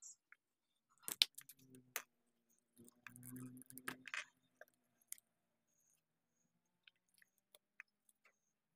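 Faint clicks and rustles of hands handling a plastic action figure. Sharp clicks come about one and two seconds in, a denser spell of handling noise follows between three and four seconds, and scattered light ticks come after.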